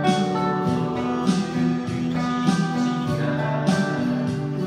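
Acoustic guitar music, chords strummed in a steady rhythm.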